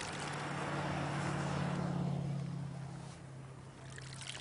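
A car passing on the road, its engine and tyre noise swelling and then fading away after about two and a half seconds.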